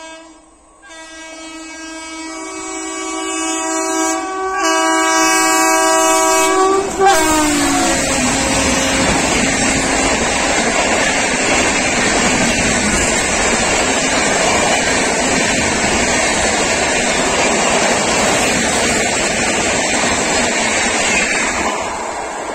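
WAP7 electric locomotive sounding a long multi-tone horn that grows louder as it approaches, with the pitch dropping as it passes at high speed. The rush of its passenger coaches rolling past over the rails follows, steady for over ten seconds, then fading near the end.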